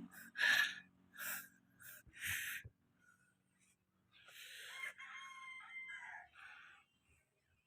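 A rooster crowing about four seconds in, after a few short noisy sounds.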